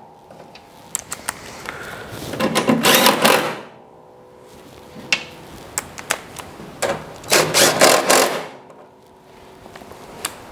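Cordless drill driving screws into a car's sheet-metal cowl panel, in two runs of rapid clicking about two and seven seconds in, each lasting a second or so, with a few single clicks and taps between.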